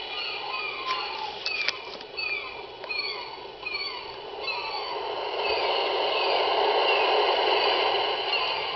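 Sleep machine's recorded ocean sound: a steady wash of surf that swells toward the end, with repeated short falling bird cries over it.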